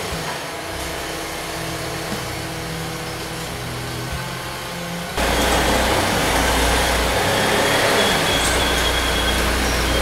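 Instrumental intro music: held low notes at first, then about five seconds in a louder, heavier section with deep bass comes in.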